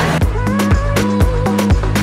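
Background music with a steady beat and a repeating bass line.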